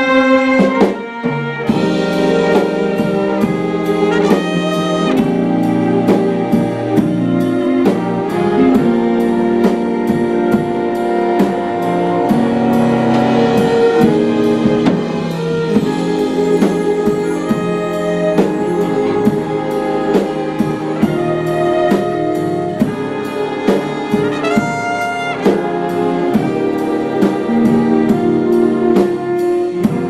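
Jazz big band playing. A solo trumpet's held note ends about a second in, then the full ensemble of trombones, trumpets and drum kit plays moving chords with a steady swing beat.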